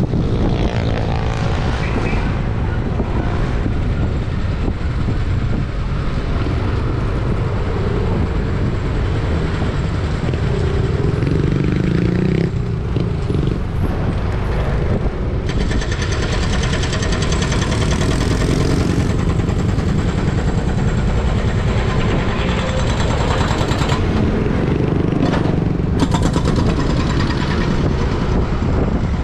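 Steady road noise from a moving vehicle: engine and traffic sound with wind rushing over the camera's microphone.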